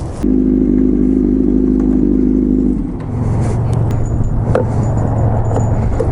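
Motorcycle engine held at steady high revs, then dropping to a lower, steady note about three seconds in, with a few light clicks and rattles.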